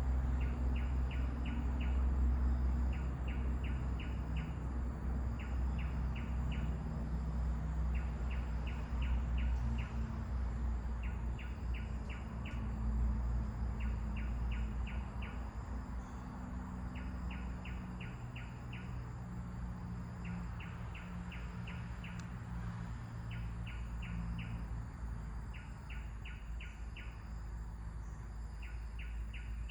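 A bird calling in quick bursts of four to six high, short notes, repeated every couple of seconds, over a steady low rumble of wind.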